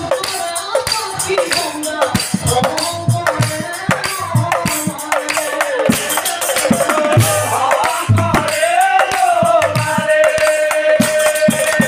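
Nagara naam music: large nagara drums beaten with sticks in a steady rhythm, with brass cymbals jingling over them and men singing a devotional chant. The singing ends on one long held note near the end.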